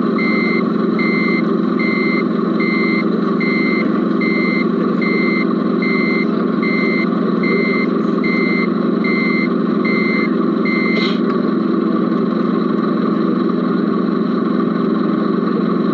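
Reversing beeper of a radio-controlled model truck beeping evenly, about one and a quarter beeps a second, over a steady engine hum. The beeping stops with a click about eleven seconds in, leaving the hum running.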